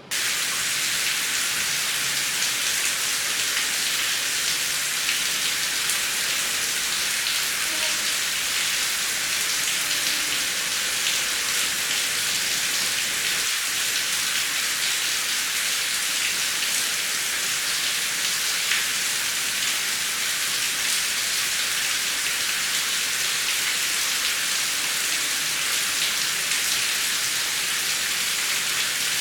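Heavy rain falling steadily, a dense hiss of many fine drops, which cuts in suddenly at the start.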